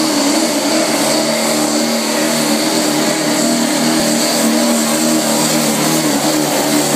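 LB7 Duramax 6.6-litre V8 turbodiesel in a dually pickup running hard under load while pulling a weight-transfer sled: a loud, steady engine note that wavers slightly.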